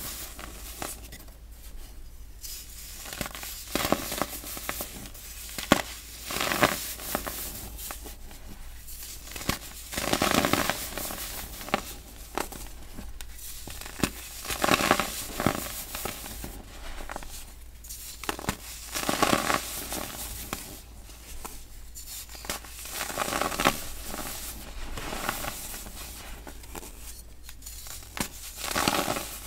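Moulded blocks of baking soda crushed and crumbled in the hands: loud crunches every two to three seconds, with softer crackling and powder rustling between squeezes.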